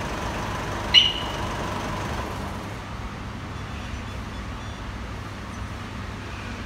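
Steady low rumble of road traffic, with one sharp metallic clink about a second in.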